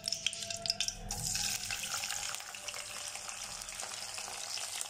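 Freshly washed, still-wet curry leaves dropped into hot oil and ghee in a wok, sizzling and spattering from about a second in, the water on the leaves making the oil splutter.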